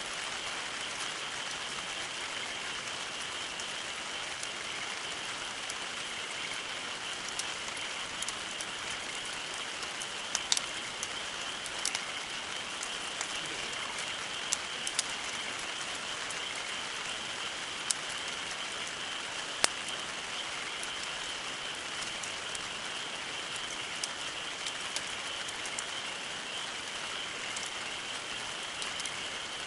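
Campfire burning with a steady hiss and scattered sharp crackles and pops, the loudest pop about twenty seconds in.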